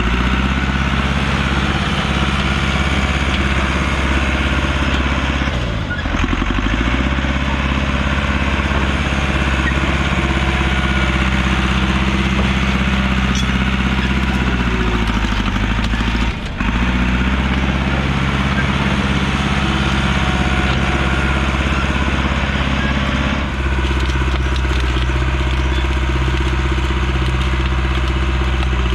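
A heavy machine's engine running steadily under work. About 6 and 16 seconds in, it bogs down briefly and recovers, as it would when lugged under load, and its tone changes near the end.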